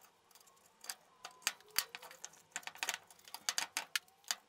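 Steel spring clamps with plastic-tipped handles being opened and snapped onto the edges of a freshly glued plywood frame: a run of light, irregular clicks and clacks.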